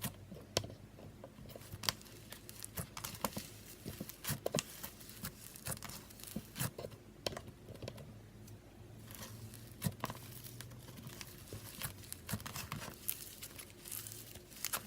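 Slime being handled, squeezed and poked, giving off irregular crackling and popping clicks.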